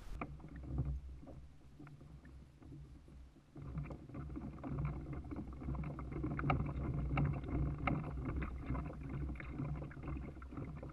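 Small waves lapping and splashing against a plastic Hobie kayak hull, with a steady low wind rumble on the microphone. The lapping gets busier and louder about a third of the way in.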